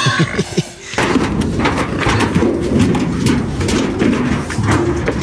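A vehicle's reversing voice alarm ('倒车请注意') ends about a second in. It is followed by a busy, noisy jumble of knocks and thumps.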